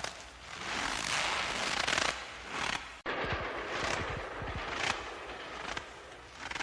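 Footsteps crunching in fresh snow, one compressed crunch after another at a slow walking pace. There is a brief break about halfway through.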